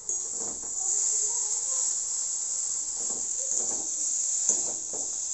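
Mashed potatoes frying in a steel wok with a steady high sizzle, and a metal spatula scraping and pressing against the pan in a few irregular strokes as the boiled potatoes are broken up.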